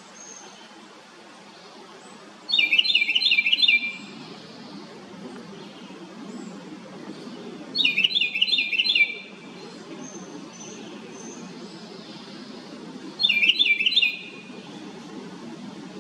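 House wren singing loudly: three short bursts of rapid, bubbling repeated notes, each lasting about a second, spaced roughly five seconds apart.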